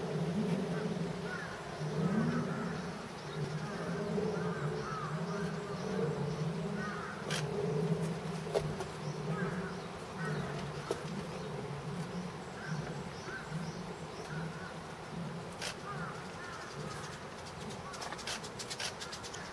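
A low buzzing hum that swells and fades throughout, with short, faint, high chirps repeated over it and a few sharp clicks.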